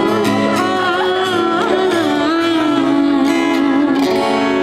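Live acoustic music: a voice singing a wavering melody over an acoustic guitar accompaniment.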